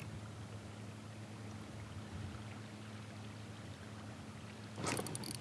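Faint water sounds around a kayak on a calm river over a low steady hum. Near the end comes a brief mechanical rattle from the fishing reel.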